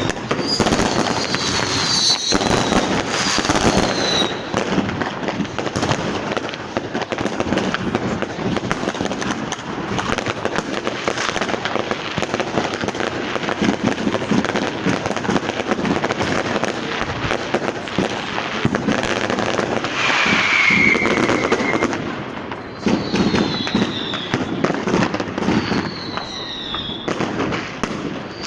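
Street fireworks and firecrackers going off without pause in a dense crackle of bangs and pops. Several whistles fall in pitch over it: a few in the first seconds, one about twenty seconds in, and more near the end.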